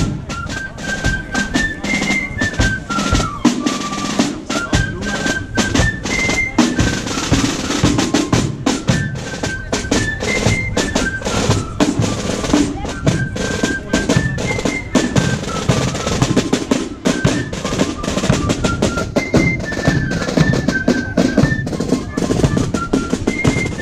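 Marching drum corps playing snare drums and a bass drum in a steady march rhythm, with a high melody line repeating a short phrase over the drums.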